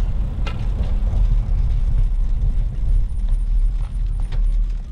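Wind buffeting the microphone while riding a bicycle: a loud, steady low rumble.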